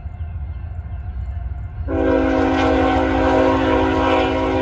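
Norfolk Southern diesel freight locomotive sounding its air horn: a chord of several tones that starts suddenly about two seconds in and is held steady, over a steady low rumble.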